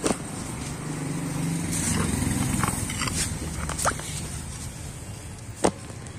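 Wooden fence boards knocking against each other and the metal truck bed as they are handled off a pickup, with a sharp knock right at the start, another just before four seconds and the loudest about five and a half seconds in. Under it a vehicle engine hums steadily, swelling briefly about two seconds in.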